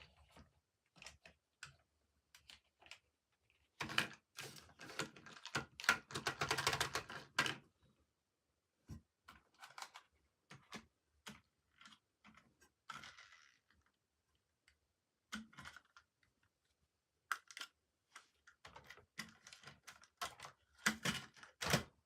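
Toy packaging and plastic toys being handled: a run of light clicks and taps, with a stretch of rustling and crinkling about four seconds in and another near the end.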